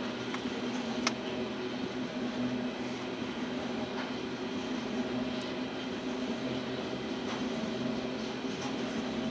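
Loaded hopper cars of a Union Pacific aggregate train rolling past: a steady rumble and drone of steel wheels on rail, with a few sharp clicks, the loudest about a second in.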